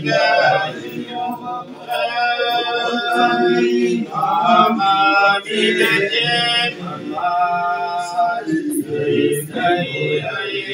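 Congregation singing a hymn to Mary together, a group of men's and women's voices holding long notes.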